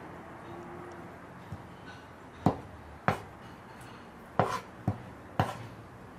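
Kitchen knife slicing the skin off a kiwi fruit on a wooden cutting board, the blade knocking sharply on the board five times in the second half, one knock weaker than the rest.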